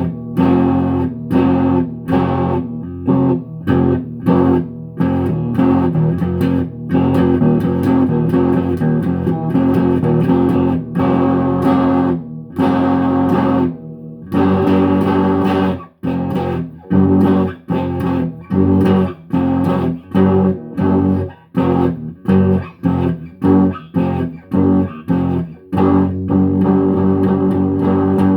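Guitar playing chords in a choppy, stop-start rhythm, the chords cut short again and again, with a brief break about halfway through.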